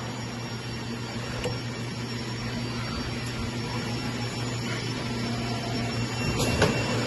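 Automatic servo-driven mandrel tube bending machine running with a steady electric hum, with a light click about one and a half seconds in and another near the end.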